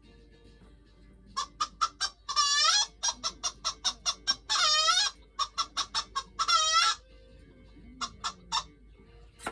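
A hen cackling: a rapid string of short clucks broken by three longer, drawn-out squawks, then a few more clucks near the end.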